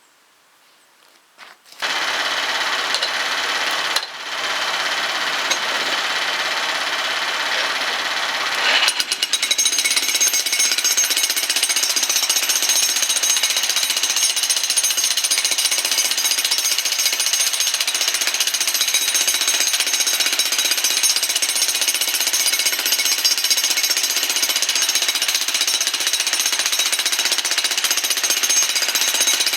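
Jackhammer breaking up a concrete pier: it starts up about two seconds in, drops out briefly near four seconds, then runs steadily, a little louder, from about nine seconds on.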